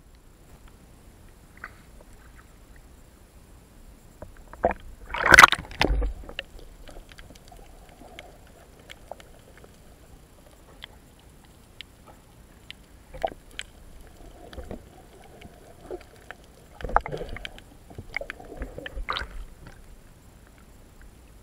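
Muffled water sloshing and knocks picked up through an action camera's waterproof housing while it is moved through the water, with a burst of louder knocks and crackle about five seconds in and more about seventeen to nineteen seconds in.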